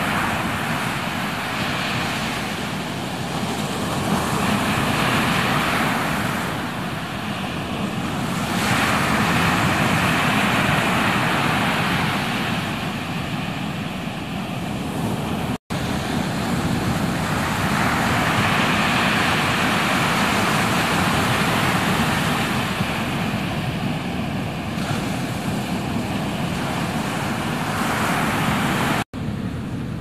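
Ocean surf breaking: a steady wash of noise that swells and eases as waves break and roll in. It cuts out briefly twice, about halfway through and just before the end.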